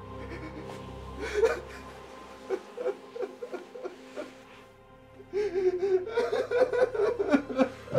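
A sombre music score with steady held tones, under a man's short, broken vocal sounds. The vocal sounds become louder and come faster about five seconds in.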